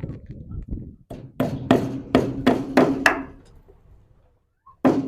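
Hammer blows driving a fastener into a wooden frame. About seven quick strikes come in a row, each with a short metallic ring, then a pause and three more strikes near the end.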